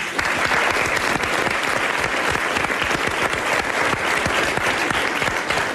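Studio audience and panel applauding: steady dense clapping that fades out near the end.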